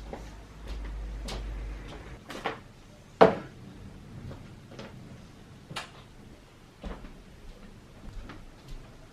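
Everyday household handling noises: a string of clicks and knocks, the loudest a sharp knock about three seconds in, over a low hum that stops about two seconds in.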